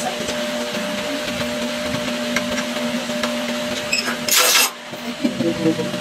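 Snap button press machine's motor running with a steady hum and light ticks. About four and a half seconds in there is a short, loud burst of noise, and the hum drops out for a moment after it.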